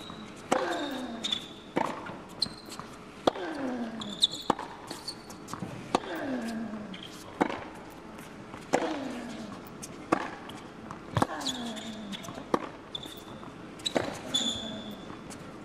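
A long tennis rally on an indoor hard court: about a dozen sharp racket strikes and ball bounces, one every second to second and a half. Most hits are followed by a short grunt that falls in pitch, and brief high shoe squeaks come in between.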